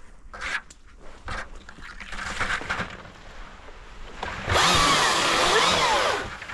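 Spruce branches brushing and rustling against a helmet while someone pushes through them. About four and a half seconds in, a louder rough scraping with squeaky sliding tones lasts nearly two seconds.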